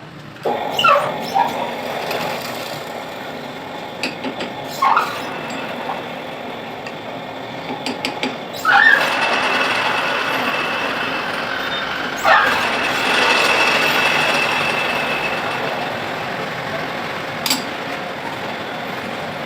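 Manual metal lathe running during thread cutting, a steady machining noise with a thin whine partway through. Short squeaks sound about four times, roughly every four seconds.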